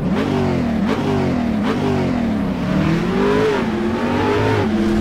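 A car engine revving up and down several times: two quick sharp blips in the first two seconds, then slower, longer swells in pitch.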